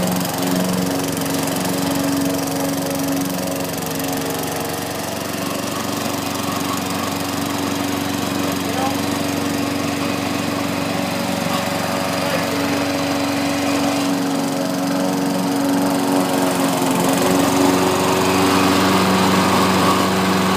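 Lawn mower's small engine running steadily while mowing.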